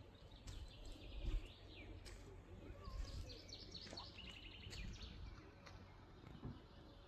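Small birds chirping, with a quick trill of repeated high notes in the middle, over a low rumble of wind on the microphone.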